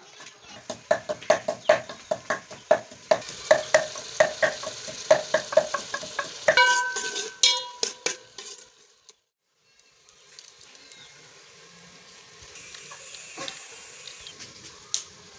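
Wooden pestle knocking in a wooden mortar, about three or four hollow knocks a second, ending in a single ringing metallic clang. After a short break, a faint sizzle of onions frying in an aluminium pot, with the odd click of a spoon.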